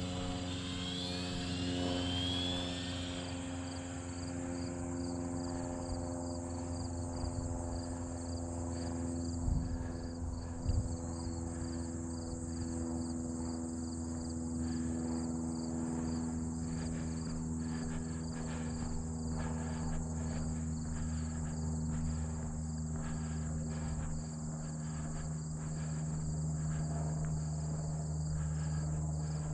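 Crickets chirping in a steady pulsing trill over a constant low mechanical hum, with two short thumps about ten seconds in.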